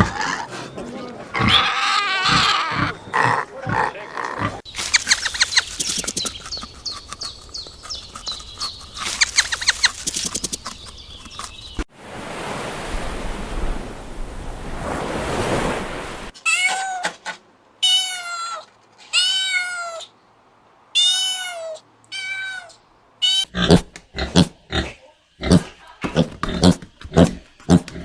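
A run of different animal calls, clip after clip, with no narration. In the latter half a domestic cat meows several times, about one call a second, each call rising and falling in pitch.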